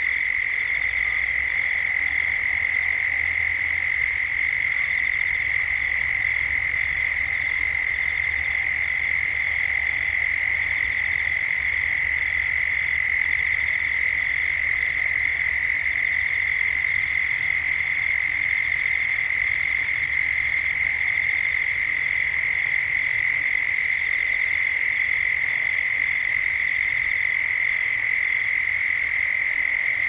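Dense chorus of cicadas droning at one steady high pitch without a break, with a few faint short high chirps over it.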